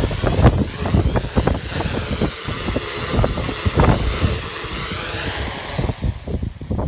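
Quadcopter's electric motors and propellers whirring as it hovers low and settles onto the ground, with strong wind buffeting the microphone. The propeller hiss drops away about six seconds in as the motors throttle down.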